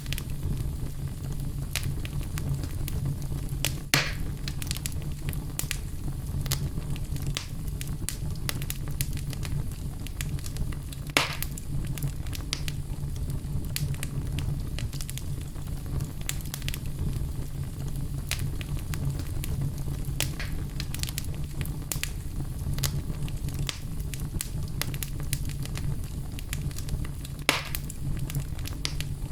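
Wood fire burning in a fireplace: a steady low rumble with scattered small crackles and three louder pops of the burning wood, about 4, 11 and 27 seconds in.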